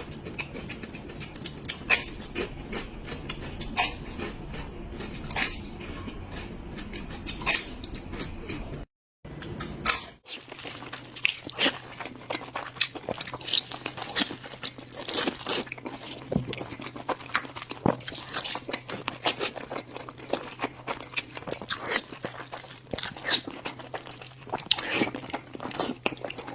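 A person chewing and crunching pork close to the microphone: sharp crunches come every second or two at first, then more densely. There is a brief cut to silence about nine seconds in, after which a low steady hum runs under the chewing.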